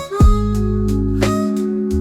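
Background music with plucked, guitar-like notes over a sustained bass, and a deep drum hit about a fifth of a second in.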